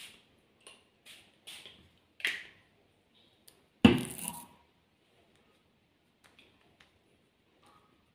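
Pump-spray toner bottle misting about five quick sprays over the first two and a half seconds, each a short hiss. About four seconds in comes one sharp thump, the loudest sound, followed by faint soft taps.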